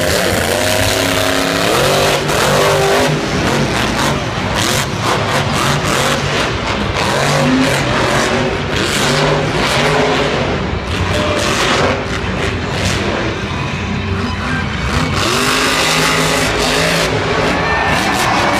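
Grave Digger monster truck's engine revving hard, its pitch repeatedly rising and falling as the truck drives the arena and launches off a jump.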